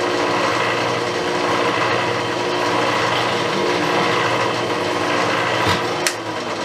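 Drill press running steadily with a small nail-sized bit, drilling a pilot hole for a nail in wood. A click about six seconds in, after which the motor begins to wind down.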